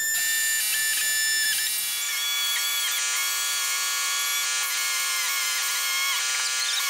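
Straight pneumatic die grinder running with a steady high whine, its pitch dipping briefly several times as the bit bites into the golf cart's plastic rear body panel while cutting out a taillight hole.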